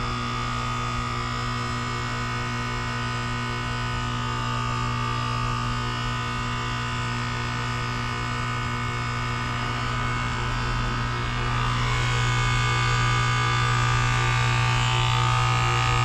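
Goodman GSZ14 heat pump outdoor unit running during a defrost cycle: a steady low compressor hum with a wavering whine above it. It grows louder about twelve seconds in.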